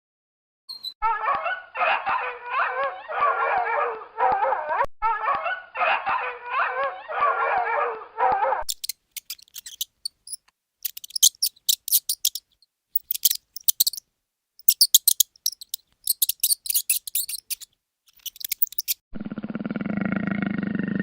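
Animal calls edited in short succession. First comes a dense run of wavering cries for about seven seconds, then scattered high, quick chirps, and then a low steady call starts near the end.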